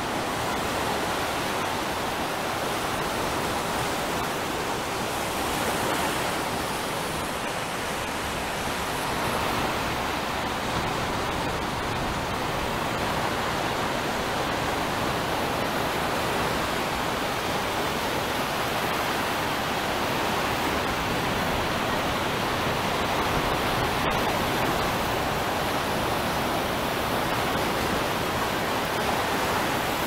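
Ocean surf: a steady, even wash of water noise with no distinct swells or single wave crashes.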